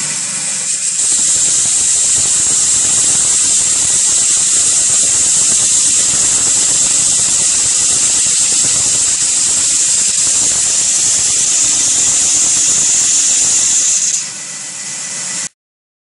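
KPSh-80 round-grinding machine's abrasive belt sanding a wooden stick as it is fed through: a loud, steady high hiss with a faint whine under it, growing louder about a second in. It drops near the end and then cuts off abruptly.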